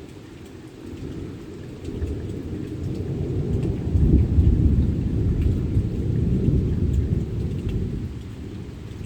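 Rolling thunder over steady rain. The deep rumble builds from about two seconds in, is loudest around four to five seconds, and dies away near the end, while the rain patters on throughout.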